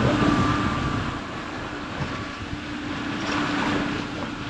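Boat's outboard motors running steadily, a low drone with a faint higher whine, with wind and water noise around it.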